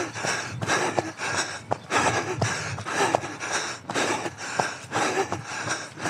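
A runner breathing hard under an all-out effort: heavy, rasping breaths in and out about twice a second.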